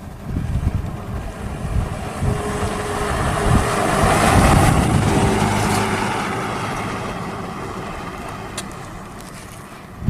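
A motor vehicle drives past, growing louder to a peak about halfway through and then fading away, with wind rumbling on the microphone.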